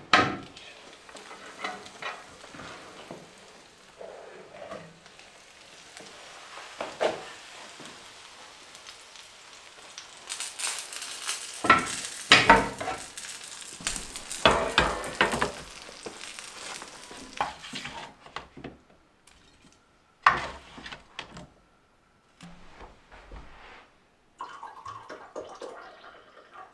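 Cooking sounds: a metal oven door clanks shut, then food on a hot roasting tray sizzles while the tray and pans knock and scrape against one another. The sizzling grows louder about ten seconds in, and a last loud metal clank comes about twenty seconds in.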